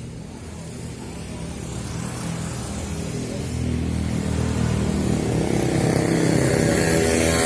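An engine running at a steady pitch, growing louder through the second half.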